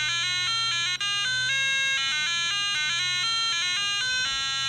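BBC micro:bit's built-in speaker playing its alarm melody on a loop as a buzzy electronic tune of stepped single notes, changing a few times a second. It breaks off for an instant about a second in and carries straight on: the melody restarts at once because light is still falling on the board's light sensor.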